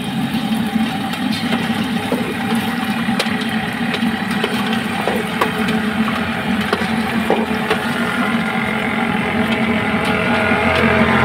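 Potato fries deep-frying in a pot of hot oil, sizzling, with a few light clinks of the metal slotted ladle as it stirs them. Under it runs a steady low engine-like rumble.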